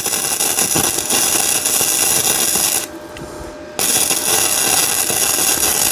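Flux-core wire-feed welding arc from a Yeswelder DP200 crackling and sputtering steadily. The arc breaks off for about a second near the middle, then strikes again and runs on.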